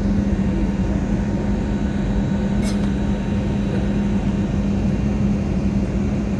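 Steady engine and air noise inside an airliner cabin in flight, with a constant low hum.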